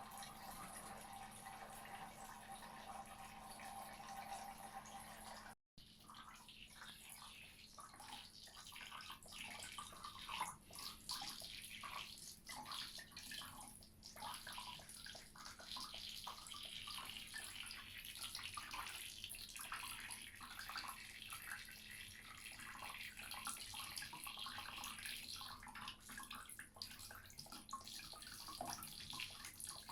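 Tap water running into a washbasin, with irregular small splashes and lapping from a cat drinking from the basin. The sound drops out for an instant about six seconds in.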